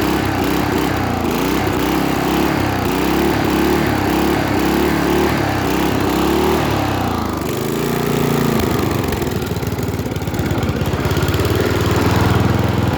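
Riding lawnmower engine running, just started. For the first half its beat wavers and surges unevenly; about halfway through it settles into a steadier, more even note.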